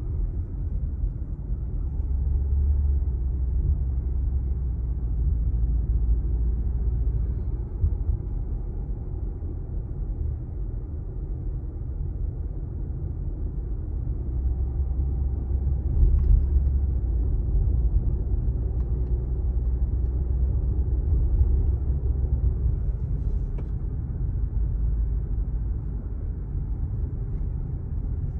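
Steady low rumble of a car's engine and tyres on the road, heard from inside the cabin while driving, with a brief knock a little past halfway.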